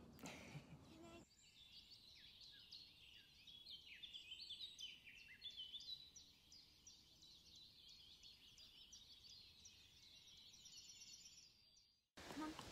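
Faint chirping of several small birds: many short calls, most sliding down in pitch, overlapping for most of the stretch.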